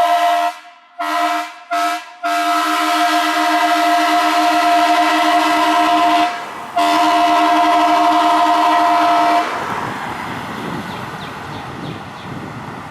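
Fire truck horn sounding several pitches at once in long blasts: three quick breaks in the first couple of seconds, a short break about six seconds in, then a held blast that cuts off about nine and a half seconds in. After it, a quieter noisy rumble fades away.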